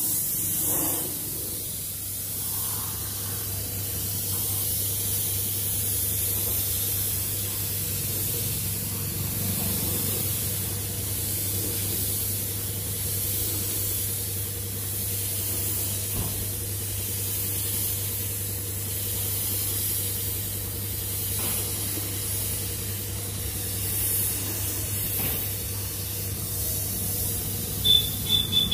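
Compressed-air gravity-feed paint spray gun hissing steadily as it sprays paint onto a car's body panels, with a steady low hum underneath. A short high beep sounds near the end.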